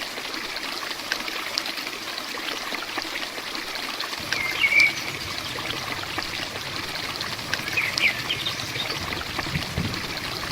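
Heavy rain falling steadily, with water running and dripping. A bird gives two short chirps a few seconds apart.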